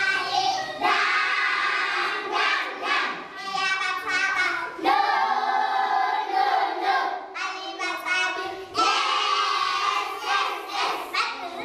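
A group of young voices singing together in sustained phrases, with little or no instrumental backing.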